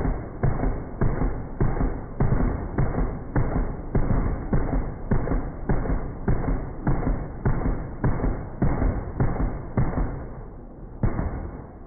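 Gunfire: a long, steady string of evenly spaced heavy shots, a little under two a second, each a deep thud with a short tail. A longer gap comes before one last shot near the end.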